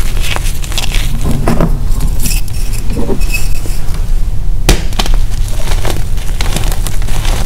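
Gym chalk crushed by hand: dry, crisp crunching and crackling as chalk lumps crumble between the fingers, over a steady low hum. The crunching eases off about two seconds in. About four and a half seconds in, one sharp crack comes as a hand squeezes a stone-shaped chalk block, followed by more crumbling.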